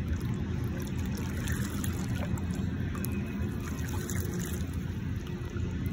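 River water sloshing and trickling as a large flathead catfish swims off from the shallows, over a steady low rumble.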